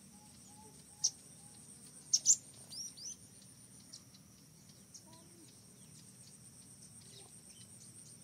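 Sharp, high chirping calls: a single one about a second in, a loud quick pair about two seconds in, then a few shorter falling chirps. A steady high insect buzz runs underneath.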